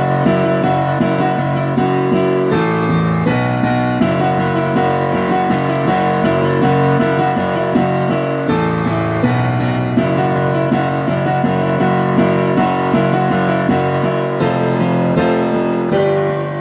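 Keyboard played in a piano sound, with a steady run of struck notes and the chords changing every few seconds.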